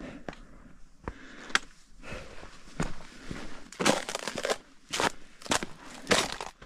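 A hiker's footsteps climbing a mountain trail: uneven crunching steps, louder and more frequent in the second half.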